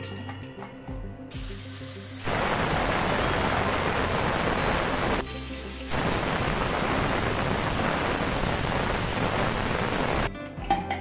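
Stovetop pressure cooker whistling: steam blows out past the weighted valve in a loud, steady hiss that builds up about two seconds in, dips briefly around the middle, then blows again and stops shortly before the end. The cooker has come up to full pressure.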